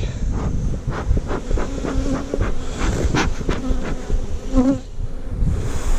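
A swarm of honeybees buzzing around the microphone, many bees flying close past at once so the hum wavers up and down in pitch. The colony is agitated, disturbed by its frames being lifted from the nuc into a new hive.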